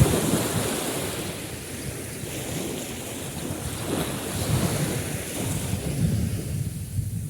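Sea waves washing on the shore, the surf swelling and fading every second or two, loudest at the start as a wave breaks, with wind buffeting the microphone.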